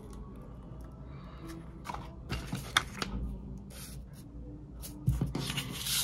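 Paper instruction leaflets rustling and sliding as they are handled, with a sharp tap a little under three seconds in and a knock about five seconds in, followed by a longer rustling swish near the end.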